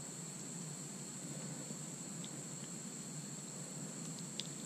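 Insects trilling steadily in one high, unbroken buzz, over a low background hiss, with a couple of faint ticks about two and four seconds in.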